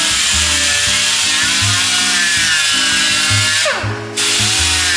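A small die grinder's disc grinding into fiberglass, its whine wavering as the pressure on it changes. Near the end it briefly lets off and winds down, then spins back up. Background music with a steady bass line plays underneath.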